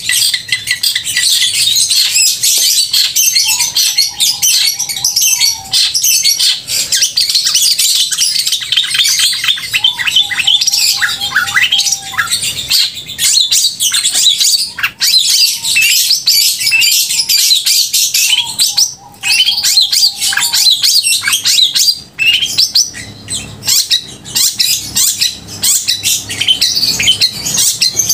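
Long-tailed shrike (cendet) singing loud and non-stop: a rapid, high-pitched, chattering song. It is broken three times by a lower, drawn-out warbling phrase lasting about two seconds each.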